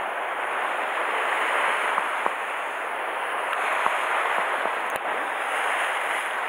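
Sea surf washing against a rocky shore: a steady rushing wash of water, with a few faint clicks.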